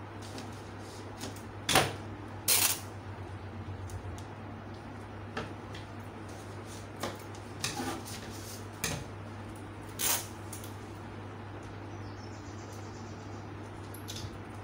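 Paper pattern pieces being handled and spread out on a table: a scatter of short rustles and light knocks, the two loudest about two seconds in, over a steady low hum.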